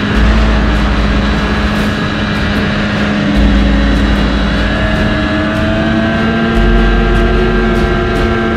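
Ski-Doo MX Z snowmobile engine running at speed as the sled ploughs through powder snow, its pitch climbing slowly through the second half. A deep bass tone comes in for about three seconds at a time, in a regular pattern.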